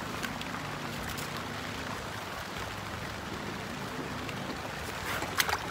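Heavy rain falling steadily, an even hiss, with a few sharp clicks near the end.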